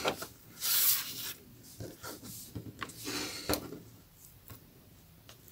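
Rolled newspaper tubes rubbing and tapping against each other and the cutting mat as they are evened up: a rustling scrape about a second in, then a few light knocks.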